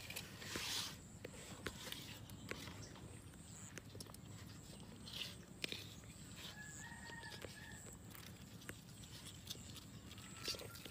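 Live fish flapping and knocking against a metal basin as they are handled, with a few brief splashy slaps among the clicks. A rooster crows once in the background, a held call of about a second midway through.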